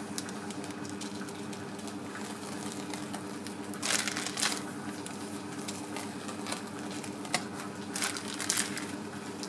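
Whipped cream being squeezed out of a piping bag, with a few short crinkling, squishing noises, two pairs of them about four seconds apart, over a steady low hum.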